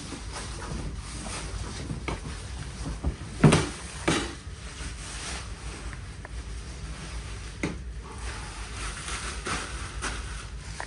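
Unboxing noise as packaging and parts are pulled out of a box: a run of rustles, scrapes and knocks, with the two loudest knocks about three and a half and four seconds in.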